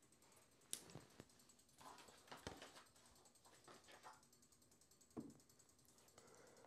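Near silence with a few faint clicks and taps as a clear acrylic quilting ruler is set down and handled on fabric. The sharpest click comes just under a second in, and a soft knock about five seconds in.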